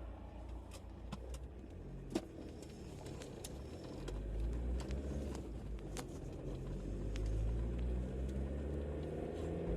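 Nissan Frontier pickup running and driving, a steady low engine and road rumble whose pitch rises slightly and grows louder in the second half, with scattered light clicks.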